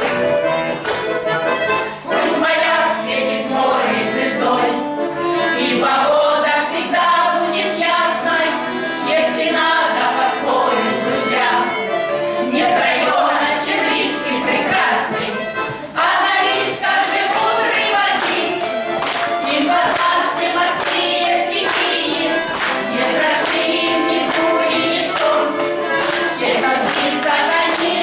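A song performed live with accordion accompaniment and a group of voices singing.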